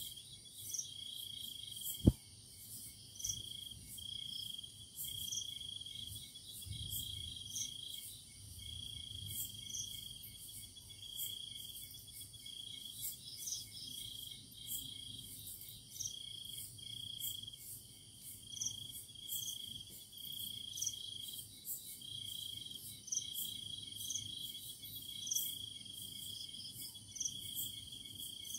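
Night chorus of crickets: a high-pitched pulsing trill in long phrases with short gaps, with fainter high ticking calls above it. A single sharp click about two seconds in.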